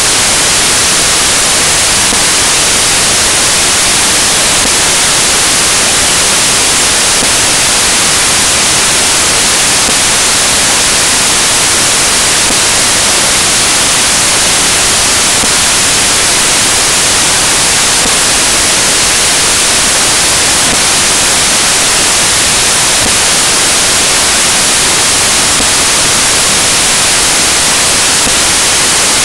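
Loud, steady static hiss like white noise, even and unchanging throughout, with nothing else heard through it. It is typical of a corrupted stretch of recording.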